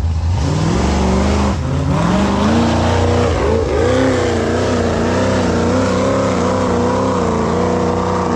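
Big-tire, high-horsepower off-road vehicle's engine revving hard. The pitch climbs about half a second in and again near two seconds, then rises and falls as the throttle is worked at high revs.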